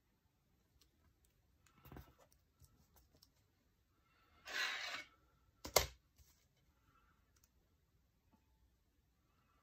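Quiet handling of paper and washi tape on a desk: a soft rustle, then a short scrape and a sharp click as a metal ruler is set down on the page.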